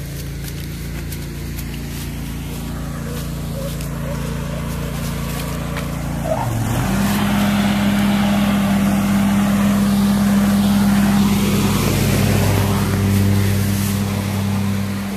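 An engine running steadily with a low hum; about six and a half seconds in its pitch shifts and it gets louder.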